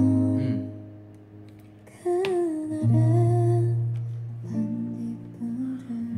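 A song playing: plucked acoustic guitar under a slow sung melody, in several held phrases.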